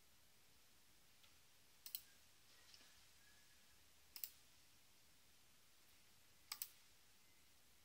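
Computer mouse button clicking: three quick double clicks, about two seconds apart, over near silence.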